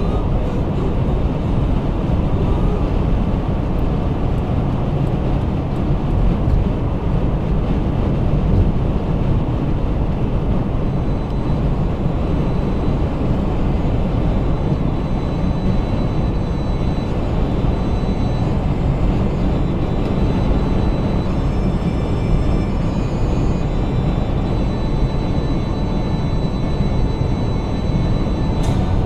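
Steady road and wind noise inside a 2016 Subaru Crosstrek's cabin at highway speed, a low, even rumble of tyres on pavement.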